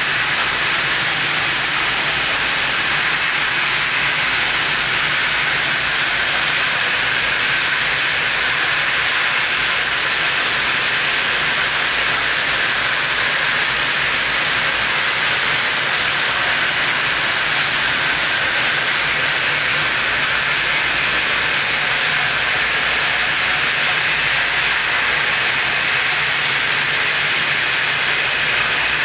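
A steady, loud hiss of noise, strongest in the upper-middle range, with a faint low hum beneath; it does not change.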